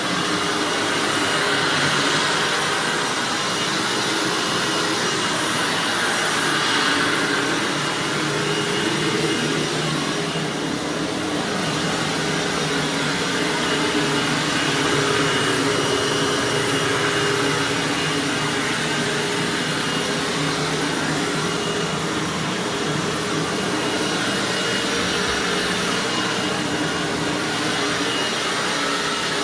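Hoover WindTunnel bagged self-propelled upright vacuum running continuously on carpet, a steady motor whine over the airflow noise, its level rising and falling slightly every few seconds.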